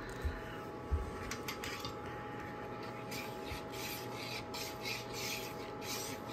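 Metal fork scraping and stirring through wet puppy mush on a metal baking sheet as water is mixed in to thin it. There are two soft knocks in the first second, then repeated scraping strokes, about two a second, from around three seconds in.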